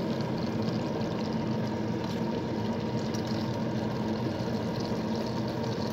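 Small whole fish sizzling steadily as they fry in hot oil in a pan, with a fine crackle of spattering.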